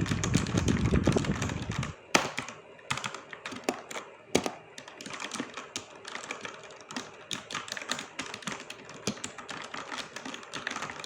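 A low rumble for the first two seconds, then fast typing on a Gamen Titan V Lite 60% mechanical keyboard with red linear switches: a quick, uneven run of key clicks, several a second, with a few louder strikes among them.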